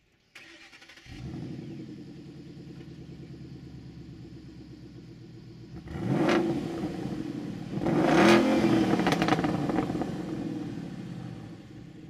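A 2012 Ford Mustang Boss 302's 5.0-litre V8 cranks, catches about a second in and settles into an idle. It is blipped twice, a couple of seconds apart, the second rev the louder, then drops back to idle. It is running through the factory side-exit exhaust, opened up by pulling the restrictor plates out of the stock H-pipe.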